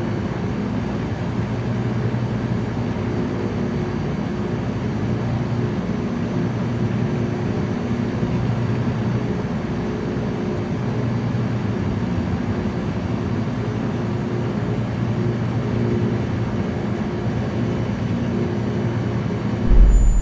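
Small light aircraft's engine and propeller running steadily at a constant pitch, heard from inside the cabin, with a brief low thump near the end.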